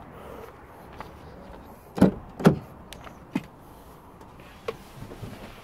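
Two heavy clunks about half a second apart as the driver's door of a BMW X1 is opened and someone gets into the seat, followed by a couple of lighter clicks.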